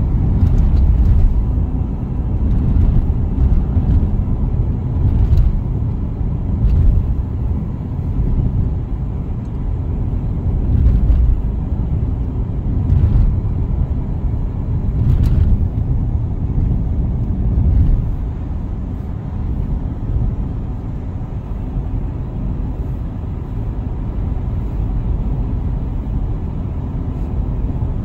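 Road noise inside a moving car's cabin: a steady low tyre and engine rumble, with occasional short thumps as the tyres cross cracked, patched asphalt. The rumble eases a little about two-thirds of the way through.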